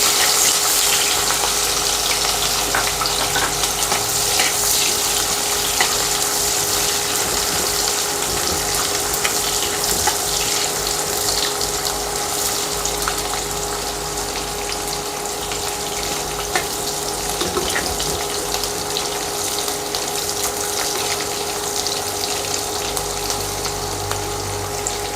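Onion sizzling as it fries in hot oil and ghee in a pan, being browned to golden brown: a steady hiss with scattered small crackles. A faint steady hum runs underneath.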